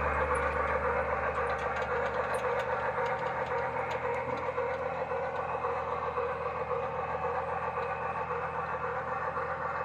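Bachmann Heisler garden-railway locomotive's Sierra sound board playing steady steam-locomotive running sound as the model runs, a continuous hiss with a faint rumble underneath.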